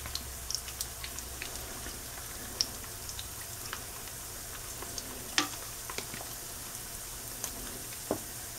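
Chicken thigh pieces in an egg-white and cornstarch coating sizzling in hot oil in a skillet, a steady frying hiss with scattered crackles and pops as more pieces are laid into the pan.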